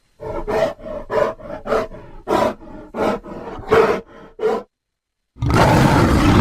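Giant panda sound effect: a run of about eight short pitched calls, roughly two a second, then after a brief pause a loud, continuous, rough call starts near the end.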